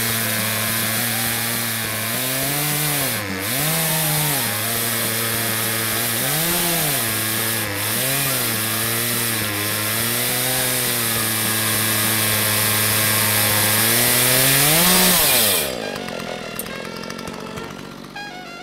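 Chainsaw ripping lengthwise along a log in a rip-cutting jig to cut a 3-inch plank. Its engine note dips and recovers several times as it cuts. About fifteen seconds in it revs up briefly, then cuts off and winds down.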